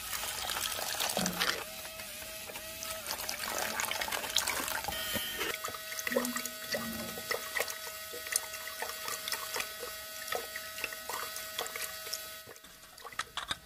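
Water poured from a tiny metal bucket into cement powder in a toy concrete mixer's drum. About five seconds in, a small electric motor starts a steady whir with rapid light clicking as the mixing paddle turns the wet cement.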